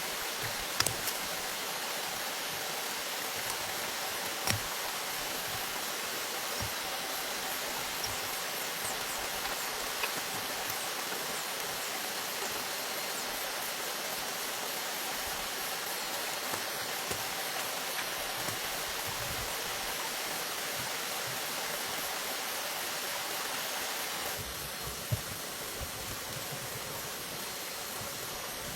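Steady rushing of flowing water, with a few light knocks scattered through; the rush drops slightly a few seconds before the end.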